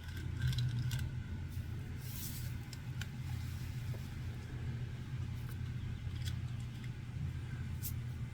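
Low steady hum of a small motorized display turntable running, with a few faint clicks from a toy car being handled on it.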